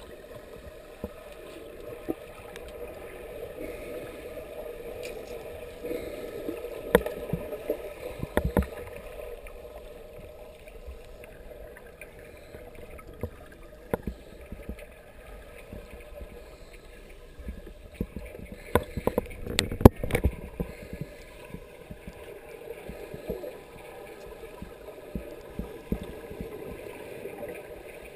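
Underwater sound in a swimming pool, muffled and steady, with the gurgle of scuba divers' exhaled bubbles and scattered sharp clicks and knocks, a cluster of them loudest about two-thirds of the way through.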